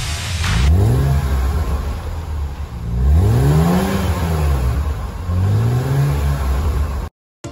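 BMW S52 straight-six blipped from idle three times through a quad-tip exhaust, each rev rising and falling back, the middle one the highest and longest. The sound cuts off abruptly near the end.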